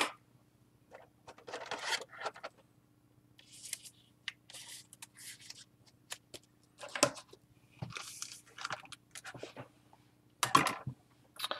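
Trading cards handled by hand: short scattered scrapes and rustles of card stock sliding against card stock, with a few sharp clicks.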